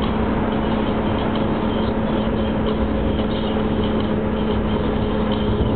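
Car driving through a road tunnel, heard from inside the cabin: steady tyre and engine noise with a constant low hum.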